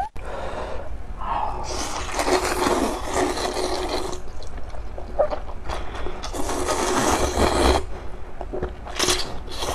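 A person slurping spicy Chongqing noodles from a cup: two long, wet slurps and a shorter one near the end.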